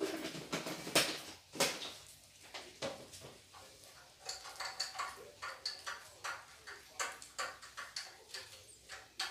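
Forks clinking and scraping on ceramic plates as two people eat cake: a scatter of short, light, irregular clicks.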